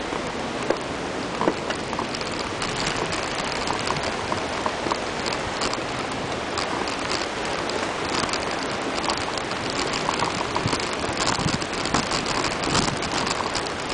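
Bicycle rolling over a gravel and dirt path: a steady crunching of the tyres, thick with small clicks and rattles.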